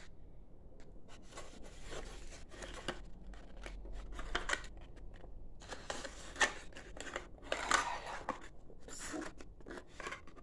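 Fingers handling a small handmade cardstock box, with card and paper rustling and scraping in irregular short strokes and a few light clicks and taps.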